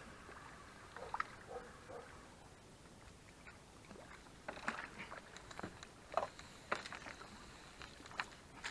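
A hooked small bream being drawn in through weed on a feeder rod: scattered small splashes and sharp clicks, more frequent in the second half as the fish nears the surface.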